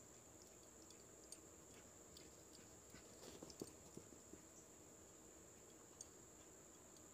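Near silence outdoors: a faint, steady, high-pitched insect trill, with a few faint taps and clicks about three to four seconds in.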